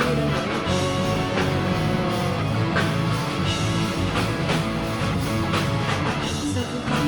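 Rock music: a band playing with guitar and a steady drum beat.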